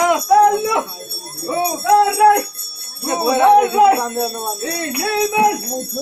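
Small bells jingling continuously over voices singing short, arching phrases in a repeating pattern, about one phrase-group a second.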